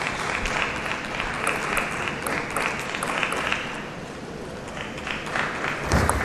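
Arena crowd clapping and cheering, dying down about four seconds in. Then sharp clicks of a table tennis ball being struck during a rally, with a heavy thump near the end.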